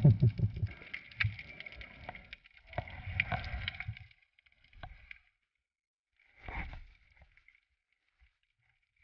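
Water rushing and sloshing around a GoPro in its underwater housing during a night free dive, in three rumbling surges: the loudest at the start, another about three seconds in and a shorter one near six and a half seconds, over a faint crackle.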